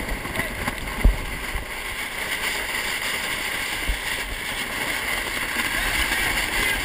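Water rushing and splashing along a 470 sailing dinghy's hull as it drives through waves in spray, with wind noise on the microphone. A single thump about a second in.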